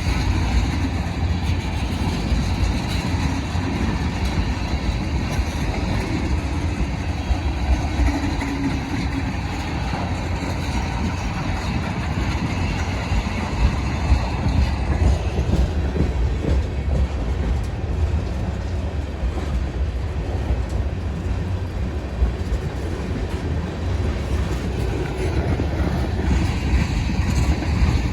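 Long manifest freight train rolling past, its cars giving a steady low rumble of steel wheels on rail.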